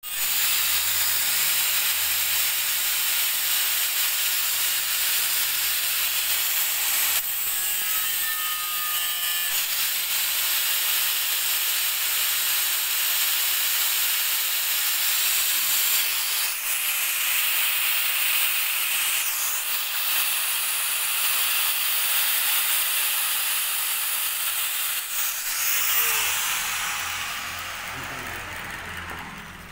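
Handheld angle grinder cutting steel rod with an abrasive disc: a loud, steady, high hissing screech of the disc on the metal, changing briefly a few times as the cut shifts. About 26 seconds in the grinder is switched off and its motor winds down with a falling whine.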